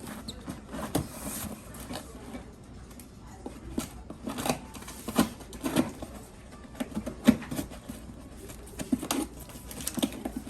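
A package being opened by hand: irregular knocks, taps and rustling of the packaging, with a few sharper clicks scattered through.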